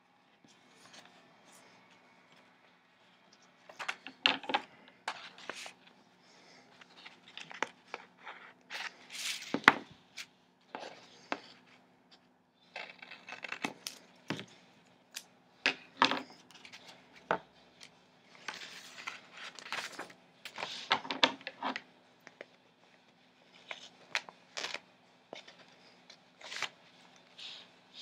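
Washi tape pulled off its roll and pressed onto paper, scissors snipping through it, and planner pages being handled: a string of short crackles and snips with pauses between them.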